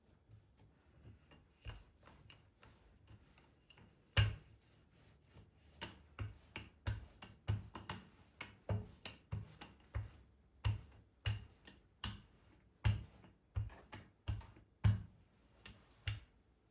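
A series of light knocks and clicks, irregularly spaced at about one or two a second, beginning about four seconds in.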